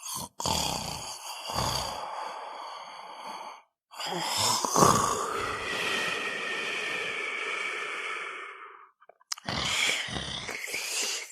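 Person snoring: three breaths, each opening with a low rattle and trailing off into a long breathy hiss, the middle one the longest.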